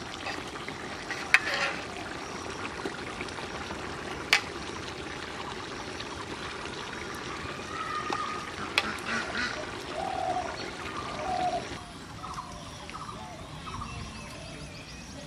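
A metal ladle stirring and scooping through egg curry in a large aluminium pot, the gravy pouring and dripping off it. The ladle knocks sharply on the pot three times.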